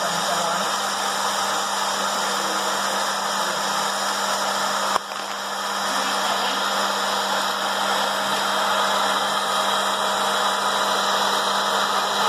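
Mini hot air popcorn maker running: its fan blowing a steady rush of hot air over a low motor hum, the kernels heating and not yet popping. A single sharp click about five seconds in.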